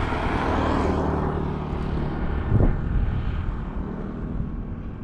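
A steady motor drone that swells about a second in and then slowly fades, with a single dull thump about two and a half seconds in.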